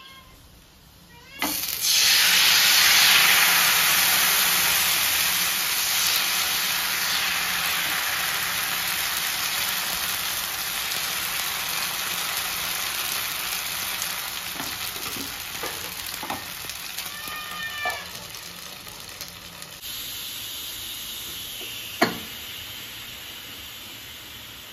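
Thin neer dosa batter hitting a hot oiled tawa and sizzling: a sudden loud hiss about a second and a half in that slowly dies down as the dosa cooks. Near the end, a steadier, quieter hiss with one sharp metal click as the pressure cooker's whistle weight is lifted with a spoon to let out steam.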